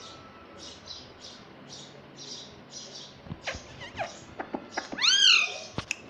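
Indian ringneck parakeet making soft, evenly spaced hissy sounds about twice a second, then a few quick falling squeaks. Near the end it gives one loud arched call that rises and falls, about half a second long.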